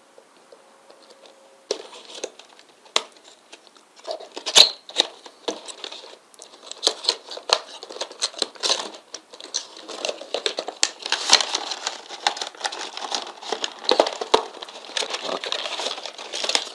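A cable's retail packaging being opened and handled: sharp clicks and snaps starting about a second and a half in, then denser crinkling and rustling from about ten seconds in.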